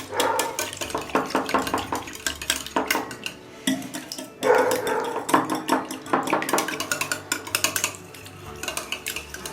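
Eggs being beaten by hand in a bowl: a utensil clicks rapidly against the bowl's sides, with a brief pause a little before halfway.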